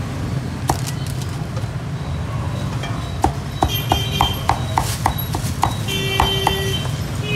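Meat cleaver chopping roast pork on a wooden chopping block: a single chop about a second in, then a quick, even run of chops about three a second from about three seconds in.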